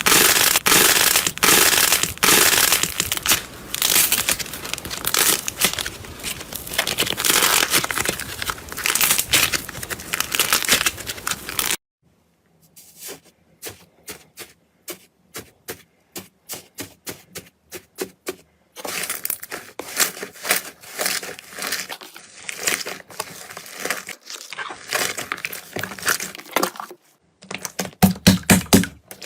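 Slime being squeezed and pressed by hand, giving dense crackling and popping. About twelve seconds in, it turns to a run of sharp, separate clicks and pops with quiet gaps between them. Denser crackling returns later.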